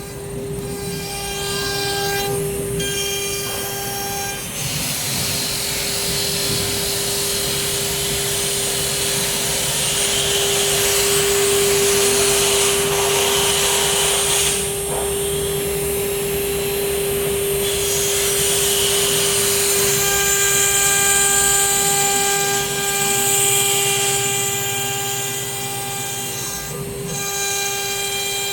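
CNC router spindle whining at one steady pitch while its bit cuts a door panel, with a rasping cutting noise that grows louder and softer as the tool moves along its path.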